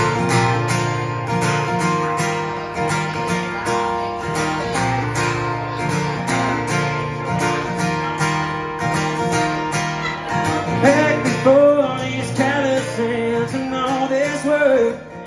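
Acoustic guitar strummed in a steady rhythm as a song's intro. About ten seconds in, a man's singing voice comes in over the guitar.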